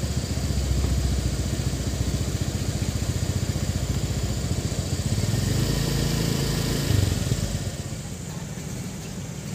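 Heavy diesel truck engine running at low revs with a steady, pulsing rumble. It rises briefly in pitch about five to seven seconds in, then fades near the end.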